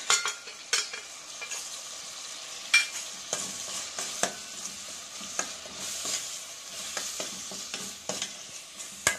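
Tomato-onion masala with freshly added spice powders frying and sizzling in a stainless steel kadai. A steel spoon stirs and scrapes it, giving irregular sharp clicks of metal on the pan over a steady hiss.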